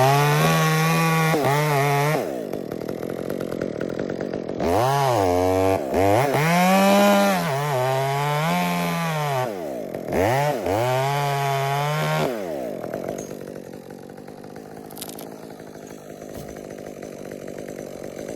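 Chainsaw cutting into a maple limb in three long bursts, the engine pitch rising and sagging under load. It then falls to a quieter, steady sound for the last several seconds.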